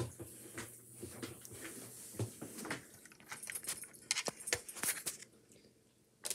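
Handling noise from a camera being moved and repositioned with a hand over it: scattered clicks, knocks and rubbing against the microphone, with a knock at the start.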